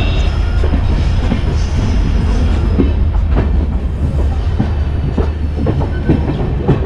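Passenger train running, heard from an open coach doorway: a steady low rumble with irregular clicks of the wheels over rail joints and points.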